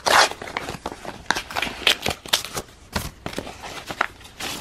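Paper envelope being torn open by hand: a run of irregular rips and crinkling paper, loudest about a fifth of a second in.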